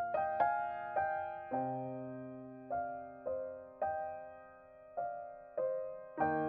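Slow, gentle background piano music: single notes and chords struck one after another and left to ring and fade.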